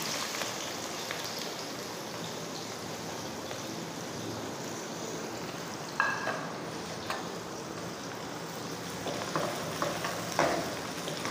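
Sliced onions sizzling in hot oil in a metal pot, with a sharp clink about six seconds in. Near the end a slotted metal spoon stirs and scrapes the onions.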